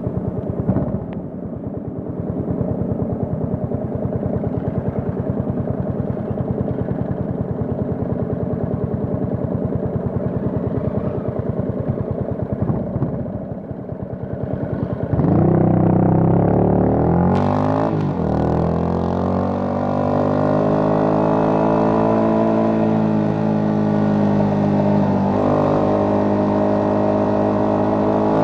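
Yamaha FZ25's single-cylinder engine through an aftermarket MTG MotoTunings exhaust, running steadily at low revs, then about halfway through getting suddenly louder as it accelerates. Its pitch rises, dips at gear changes and rises again.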